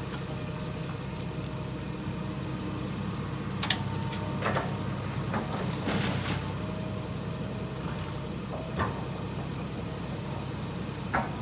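Heavy construction machine's engine running steadily, with a few sharp metallic knocks and clanks scattered through.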